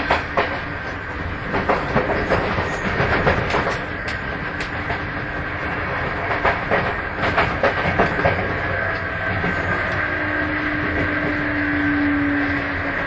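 Running sound heard inside a Sotetsu 8000 series electric train car, MoHa 8107: steady rumble with irregular clicks of the wheels over rail joints and a steady high whine. A lower hum joins about ten seconds in.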